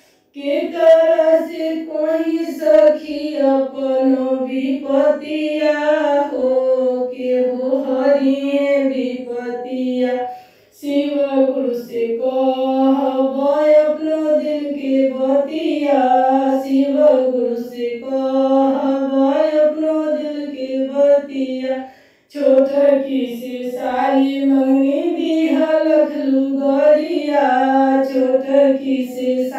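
A woman singing a Bhojpuri Shiv charcha bhajan in long, steady phrases, pausing briefly twice, about ten and twenty-two seconds in.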